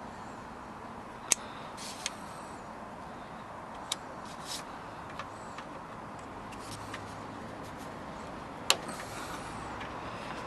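Sharp clicks and small knocks of hand work on car door trim and handle parts, a few scattered strokes with the two loudest about a second in and near the end, over a steady background hum.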